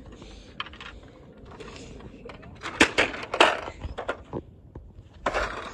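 Plastic toy fire-truck playset being kicked and stomped on, a run of sharp plastic knocks that is loudest about three seconds in.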